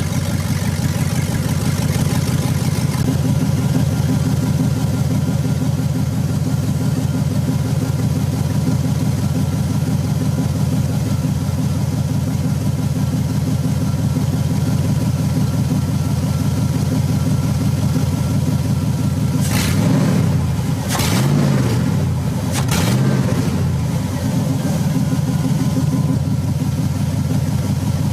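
5.3-litre LS V8 idling steadily on fresh oil after a SeaFoam treatment, with a few brief revs about twenty seconds in.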